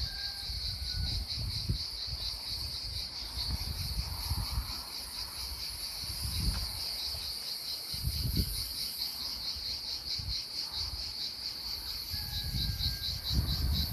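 Insects chirping steadily in a high, fast, evenly pulsing trill, over an irregular low rumble.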